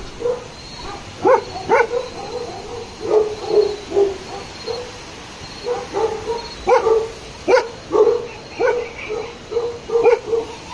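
Bhotia (Himalayan sheepdog) barking over and over in short, sharp barks at an uneven pace: alarm barking at a leopard that has come to the farm.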